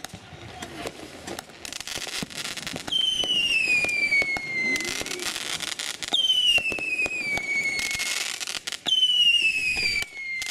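Fireworks firing whistling shots: three long whistles, each sliding down in pitch over about two seconds, with sharp pops and crackling around them.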